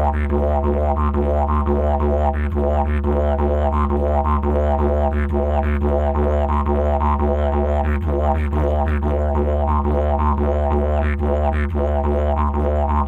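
Didgeridoo music: one unbroken low drone with a regular rhythmic pulse in its overtones.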